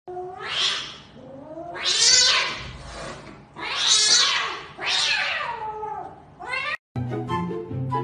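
A cat yowling (caterwauling): four long, drawn-out calls that rise and fall in pitch, then a short one just before a sudden cut.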